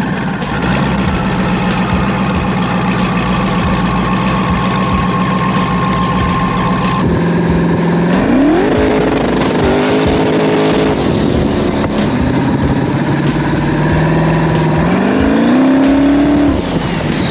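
Turbocharged Chevrolet Silverado's engine running steadily, then revved up quickly twice and held at higher revs before cutting off sharply near the end.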